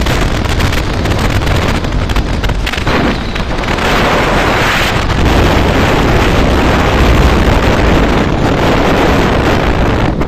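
Heavy wind rushing and buffeting on the microphone of a motorcycle riding at highway speed, with road and vehicle noise underneath. It is loud and steady throughout.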